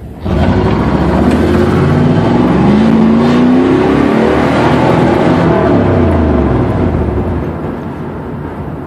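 A 1994 Pontiac Trans Am's LT1 small-block V8, breathing through a Flowmaster catback with a Spintech muffler, launching hard. The engine note climbs with the revs, drops once about three and a half seconds in and climbs again, then eases off near the end. It stumbles up top, which the owner puts down to the engine running really rich and guesses is a bad coolant temp sensor.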